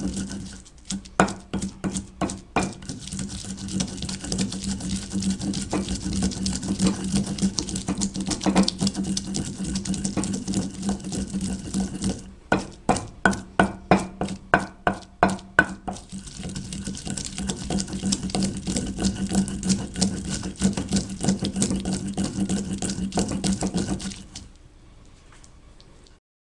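Wooden pestle grinding green chillies and garlic into a wet paste in a stone mortar: steady rubbing and scraping, with two runs of quick rhythmic strokes, about three a second, near the start and about halfway through. The grinding stops shortly before the end.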